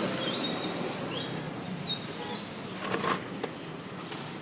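Outdoor street ambience: a steady hum of light traffic, with a few short high chirps in the first two seconds and a cluster of short knocks about three seconds in.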